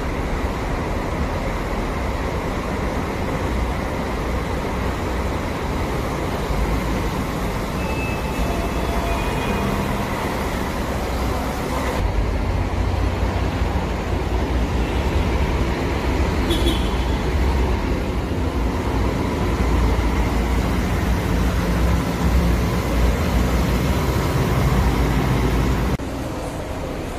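Buses running: steady engine and road noise with a heavy low rumble, which changes abruptly about twelve seconds in and again near the end.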